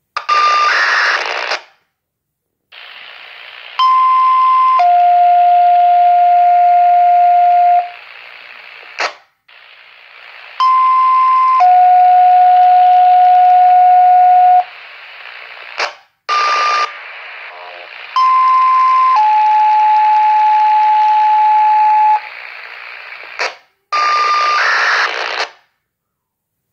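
Scanner radio carrying the tornado alert test as three two-tone sequential pages over radio hiss. Each page is a higher tone for about a second, then a lower tone held for about three seconds. Short, loud bursts of radio noise with a brief beep come at the start, between the later pages and near the end.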